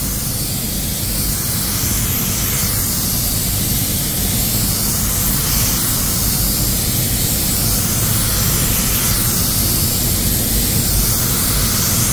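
Compressed-air spray gun spraying clear coat: a steady hiss of air over a deep, even rushing noise.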